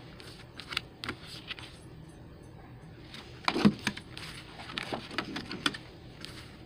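A stack of printed cardstock posters handled and flipped through one sheet after another: paper sliding and rustling with sharper taps and flaps, the loudest a little over three and a half seconds in.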